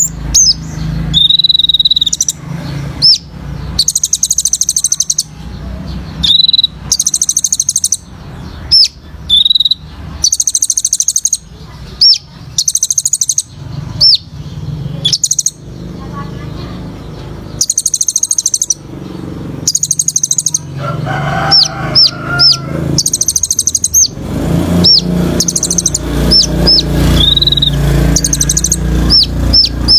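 Sunbird (kolibri ninja) singing its rapid 'tembakan' phrases: high, fast buzzy trills about a second long, repeated every two seconds or so, broken by sharp short whistled chips. A steady low hum runs underneath.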